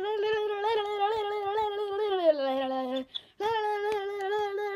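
A boy singing long held notes on an open vowel: one steady note that slides down to a lower one about two seconds in, breaks off briefly about three seconds in, then comes back on the higher note.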